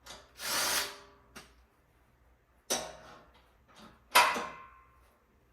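Metal bed-frame parts being handled during assembly: a short scrape, then two sharp metallic knocks with a brief ring, the second and louder one about four seconds in.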